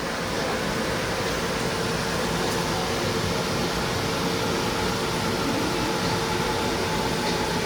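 A steady machine whir, like a motor-driven fan or blower running at constant speed, with a faint steady tone through it.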